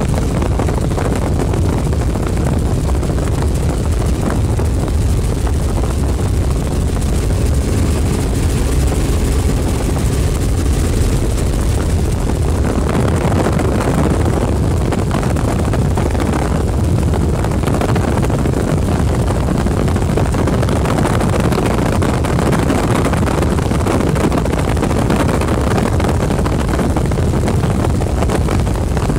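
Helicopter in flight heard from inside the cabin: steady, loud engine and rotor noise.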